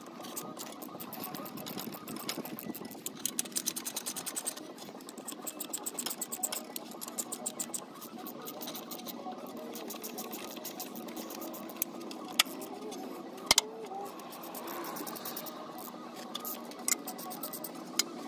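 Ratchet wrench clicking rapidly while loosening exhaust manifold nuts, sped up to four times speed so the clicks run together into a fast chatter. There are a couple of sharp metal clacks about two-thirds of the way in.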